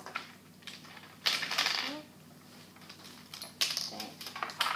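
Small hard toy pieces and packaging being handled, clattering and clicking in short bursts: one about a second in and another near the end.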